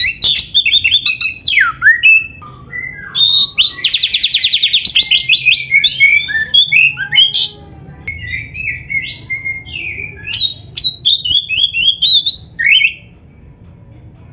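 Oriental magpie-robin (kacer) singing a loud, varied song of quick whistles, slurred notes and harsh chatters, the full-repertoire song used as a training master for caged birds. A fast, even trill comes about four seconds in, and the song stops about a second before the end.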